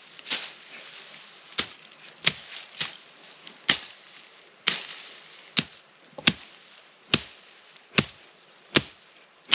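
Steady chopping with a hand blade, cutting brush and scrub stems in a field: about a dozen sharp, crisp strokes, each a little under a second apart.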